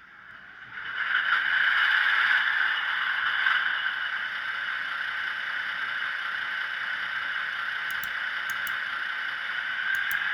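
Engine sound of a Köf II small diesel shunting locomotive. It comes up over the first second or so, then runs steadily, with a thin sound that has little bass.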